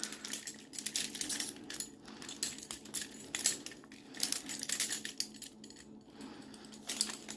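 Steel handcuffs being picked open with a handmade pick: irregular metallic clicks and clinks of the pick working the lock and the cuffs knocking together, coming in short clusters.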